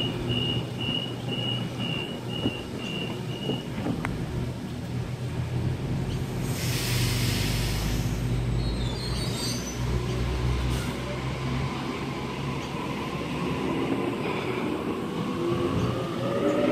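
Sydney Trains double-deck electric train at a platform, humming steadily: a door-closing warning beeps about twice a second for the first few seconds, a burst of air hiss comes about seven seconds in, and near the end a rising whine begins as the train pulls away.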